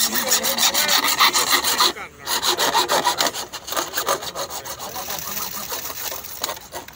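Hand saw cutting into a plastic drainage pipe, in rapid, even back-and-forth strokes, with a short pause about two seconds in and softer strokes after that.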